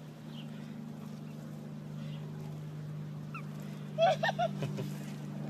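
Toad squeaking: a quick run of three or four short, high squeaky calls about four seconds in, with a couple of faint chirps just before, over a steady low hum.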